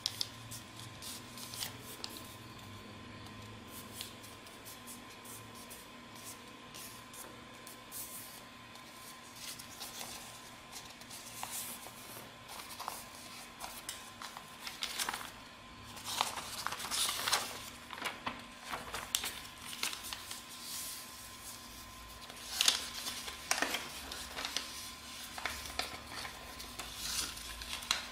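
A sheet of A4 paper being folded and creased by hand: irregular rustling and sharp scraping crinkles, busiest and loudest in the second half, over a faint steady hum.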